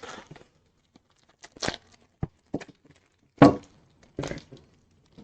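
Candy-bar wrapper crinkling and tearing as it is opened, in several short separate rustles and clicks, the loudest about three and a half seconds in.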